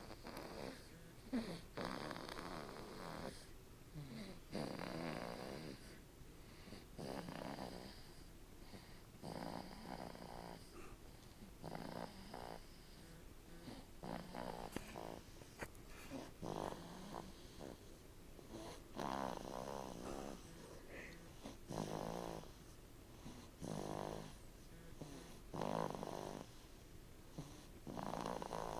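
Slow, rhythmic snoring, one snore on each breath about every two to three seconds, with quieter gaps between the breaths.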